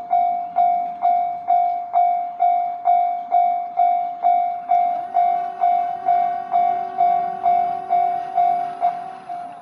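Japanese level-crossing warning bell ringing a single repeated tone, about two strikes a second, while the crossing is closed. From about halfway in, the running noise of an approaching train builds underneath it.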